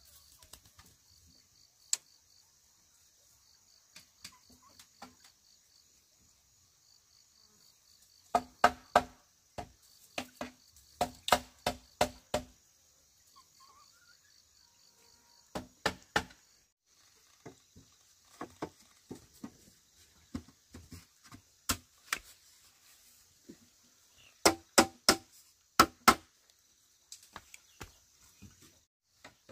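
Hollow knocks of bamboo on bamboo in quick runs of two to six strikes, as the legs of a bamboo chair frame are knocked into the holes of its crosspieces. Insects chirr steadily throughout, with a fast pulsing chirp in the first half.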